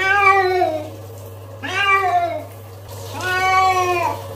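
Domestic cat meowing three times while being bathed, each a long drawn-out meow of about a second that drops in pitch at the end.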